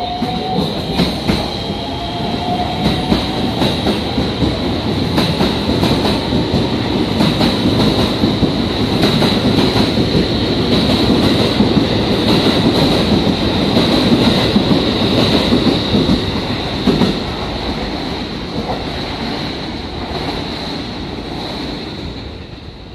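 Electric commuter train running along the platform: the rumble of the cars and the clack of wheels over rail joints, with a steady high squeal throughout. It swells to its loudest about halfway through as the cars pass close by, then eases off near the end.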